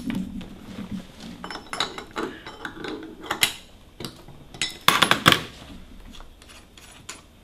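Scattered metallic clinks and knocks from handling a step-sanding router: its threaded metal depth collar, a hook spanner fitted to the collar and the clear plastic base plate. The loudest pair of knocks comes about five seconds in.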